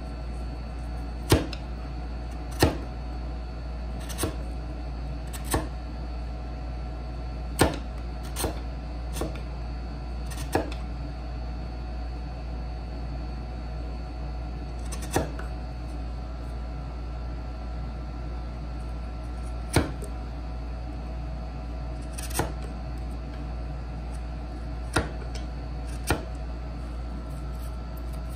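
Sharp knocks from hand-tool work on a wooden dovetail joint, about a dozen at uneven intervals, some a second apart and others several seconds apart, over a steady low hum.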